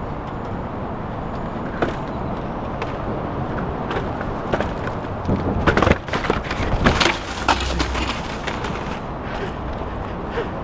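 Mountain bike ridden fast over a dirt trail, with steady wind and tyre noise on a bike-mounted camera. Midway comes a run of hard knocks, clatters and a low thump as the bike jolts over rough ground, then the steady rolling noise goes on.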